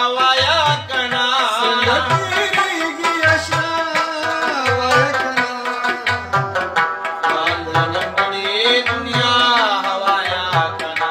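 Afghan rubab plucked in a fast melodic line over a steady low drum beat, with a man's voice singing a Pashto ghazal at the start and again near the end.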